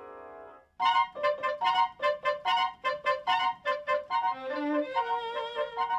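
Background music: a held chord fades out into a brief gap, then a brisk tune of short, evenly spaced notes, about two or three a second, that turns into a smoother flowing melody near the end.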